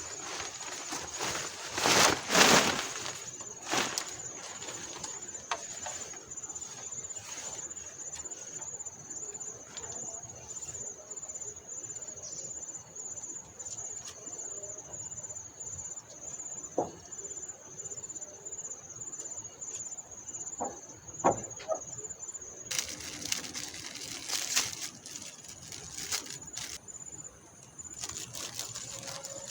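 Insects keep up a steady, high-pitched, faintly pulsing drone. Over it come several bursts of rustling, the loudest about two seconds in and another near the end, and a few sharp knocks of something being handled.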